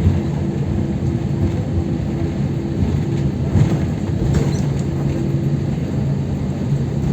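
Airliner cabin noise as the aircraft taxis after landing: a steady rumble with a low, even hum from the engines and air system, and a few faint clicks about halfway through.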